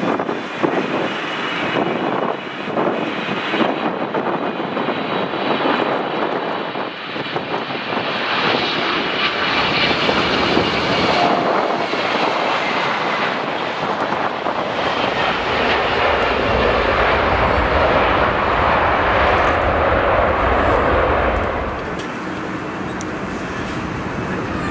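A Boeing 777's GE90 turbofans on landing at close range: a steady whine of jet noise over a rushing sound. It grows louder as the airliner passes and touches down, a deep rumble joins in about two thirds through, and the noise drops back a few seconds before the end.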